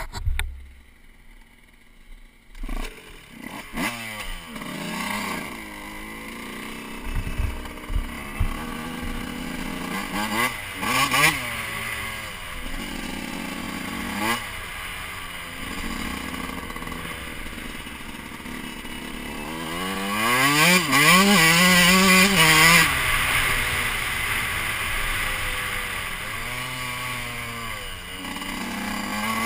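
Suzuki RM125's two-stroke single-cylinder engine revving as the dirt bike rides off. Its pitch climbs and drops again and again as it accelerates and shifts through the gears, loudest about twenty seconds in.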